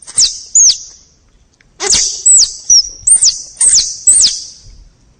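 Squirrel calling: a series of high-pitched squeaky chirps, each falling sharply in pitch. Two come close together, then a quicker run of about six follows.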